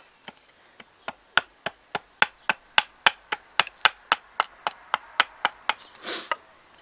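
Small axe chopping into a seasoned, bone-dry alder spoon blank: a steady run of sharp strikes, about three to four a second. The wood is hard, so each one is a heavy stroke. A brief rushing noise follows near the end.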